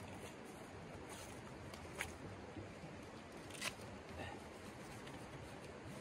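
Tent fabric being handled and rustled, with two short sharp clicks about two and three and a half seconds in, over the faint steady rush of the stream.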